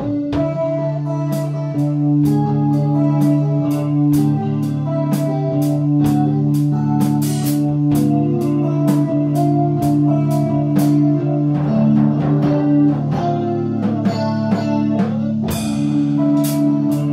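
Live electric guitar and drum kit playing together: long held, ringing guitar notes over a steady beat with regular cymbal hits.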